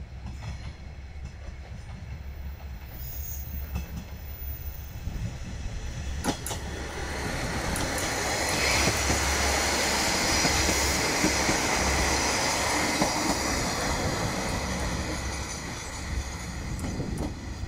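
A two-car JR Shikoku diesel railcar passing close by and running into the station: engine and wheels on the rails grow louder from about six seconds in, with one sharp click, are loudest around the middle, then ease off as it slows.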